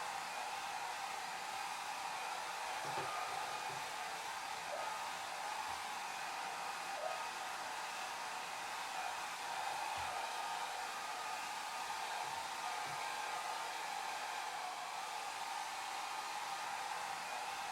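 Hair dryer running steadily, a continuous airy rush with its strongest band in the middle range.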